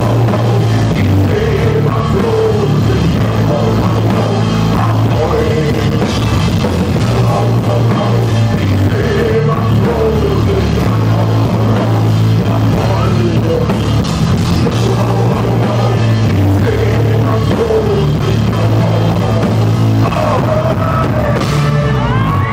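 A live band plays a loud, up-tempo rock song with singing, drum kit and accordion, recorded from among the audience. Crowd shouts start to rise over the music near the end.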